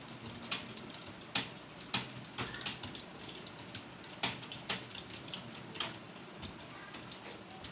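Computer keyboard being typed on: irregular clicking keystrokes, with a handful of louder key strikes standing out among fainter taps.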